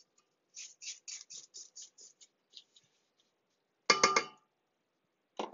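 Spatula scraping the sides of a stainless-steel stand-mixer bowl to free stuck cookie dough: a run of soft, quick strokes, about three or four a second, that thin out, then one loud ringing metallic clink about four seconds in.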